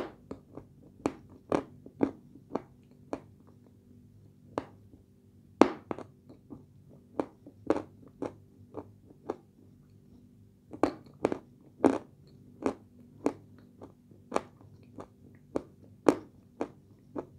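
A person chewing dry, crunchy edible clay close to the microphone: sharp separate crunches, often about two a second, with short pauses between runs, over a faint steady low hum.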